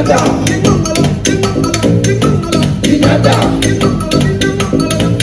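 Live band playing upbeat dance music: fast, steady percussion strokes over a repeating bass line.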